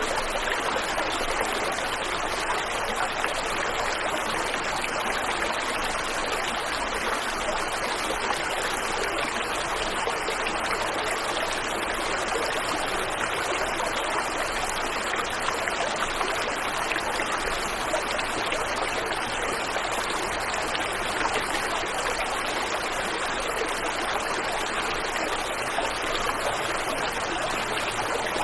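Waterfall and river water rushing in a steady, unbroken hiss.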